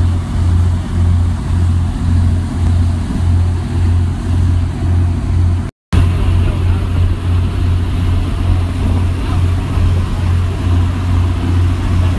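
Boat engine running steadily under way, a low drone with a regular throb about two or three times a second, over the rushing hiss of the wake. The sound cuts out for an instant about six seconds in.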